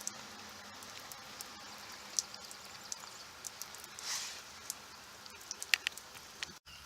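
Faint outdoor background hiss with scattered light clicks and taps and a short rustle about four seconds in; the sound drops out briefly near the end.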